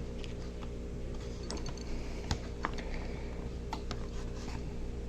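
Small scattered clicks and taps of a plastic windshield piece and diecast toy bus body being handled and pressed as the tight-fitting part is worked into place, over a steady low hum.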